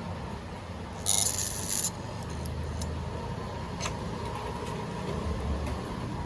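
Rewound ceiling-fan stator, energized on mains, giving a steady low electrical hum that grows stronger at times as a piece of iron is drawn to it by the coil's magnetism. About a second in, a harsh metal scraping lasts under a second, and a sharp click follows near four seconds.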